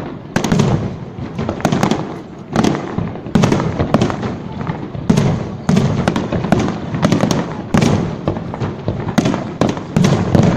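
Fireworks display: a rapid, unbroken barrage of bangs and crackling bursts, several a second.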